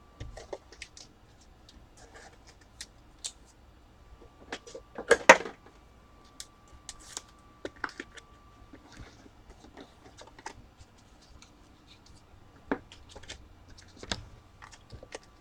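Trading cards and their packaging being handled by hand: scattered small clicks, taps and short rustles, with a louder rustle about five seconds in.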